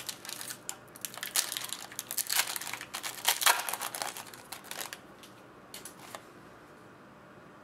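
Trading cards and their foil pack wrappers being handled: crinkling and rustling with quick clicks for about five seconds, then a few isolated taps as the handling slows.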